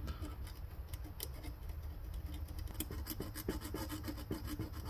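Fine emery paper scratching back and forth between small brass switch contacts in a cassette deck transport, in quick light strokes that come thickest in the second half. It is cleaning the contacts, a routine part of servicing the deck.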